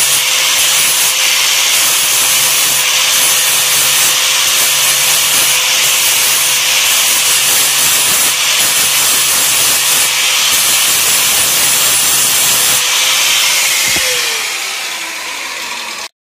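Angle grinder grinding stubborn plasma-cut dross off the edge of a thin, rusty sheet-steel cutout, a steady, loud grinding with a constant motor pitch. About 14 seconds in the grinder is switched off and its pitch falls as the disc winds down.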